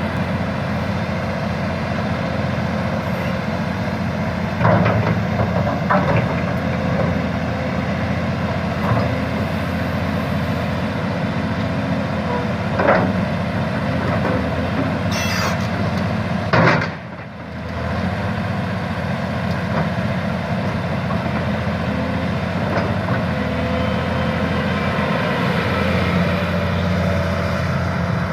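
2008 Volvo 360CL hydraulic excavator's diesel engine running steadily, with a handful of sharp knocks and clanks over the top and a brief dip in level about two-thirds of the way through.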